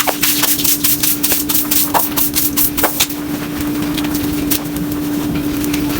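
A motor running with a steady hum, with many sharp clicks and rattles over it that grow fewer after about three seconds.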